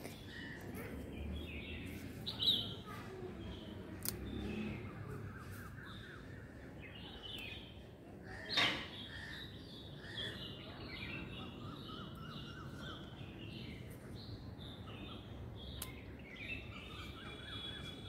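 Small birds chirping and calling on and off, faint, with one louder call a couple of seconds in. About halfway through there is a single short, sharp sound, the loudest in the stretch.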